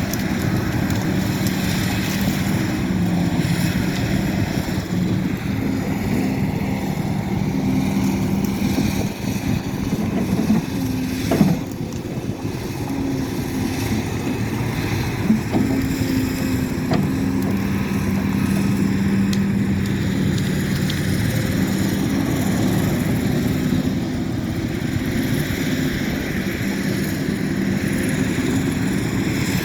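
Excavator's diesel engine running steadily, its pitch stepping up and down a little, with two brief knocks about 11 and 15 seconds in.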